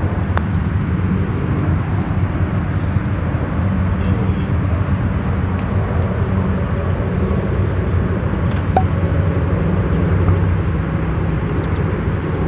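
A steady low outdoor rumble that does not rise or fall. About half a second in, a faint tap as a putter strikes a golf ball.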